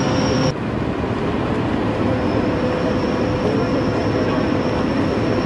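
Heavy machinery running steadily: a dense rumbling noise with a constant high whine over it. The sound changes abruptly about half a second in, and the whine drops out for a moment before coming back.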